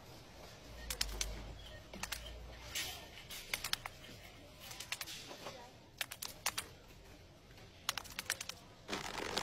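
Irregular sharp clicks and taps, some coming in quick runs of several, with a faint low hum about a second in.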